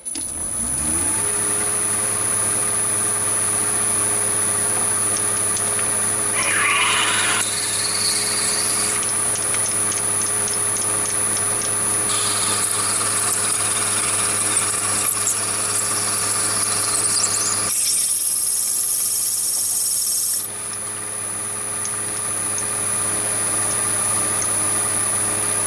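Chinese mini lathe spinning up and running at a steady speed, a motor hum with a high whine, while an 11.4 mm twist drill bores through a block of acetal plastic. Stretches of cutting and rubbing noise come from the drill, and the cutting sound stops about 20 seconds in while the lathe runs on.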